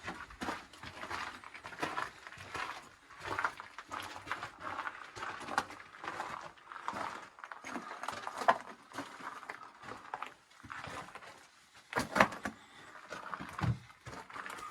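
Footsteps on a rocky mine floor, an uneven walking stride with a few sharper knocks along the way.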